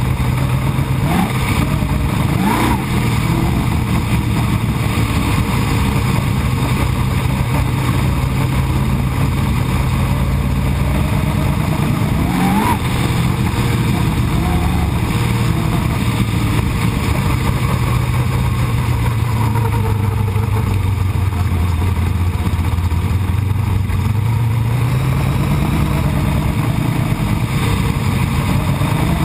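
Winged dirt-track sprint car's V8 engine running under way, heard from the cockpit: a loud, steady engine note that drops a little past the middle and climbs again near the end, with brief rising sweeps about two seconds in and near halfway.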